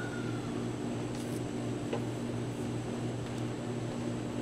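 A steady low mechanical hum, with a faint rustle about a second in and a light tick about two seconds in.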